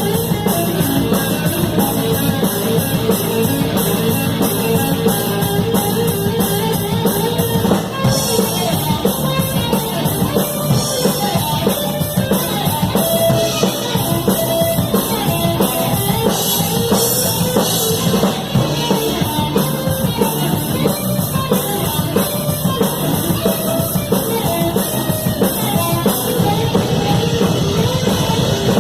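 Rock band playing live, heard from beside the drum kit: drums and cymbals loud and up front over electric guitar.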